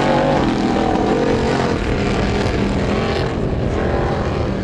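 Formula Offroad car's engine running hard at high revs as it climbs a steep sand slope, its pitch rising and falling as the throttle and wheelspin vary.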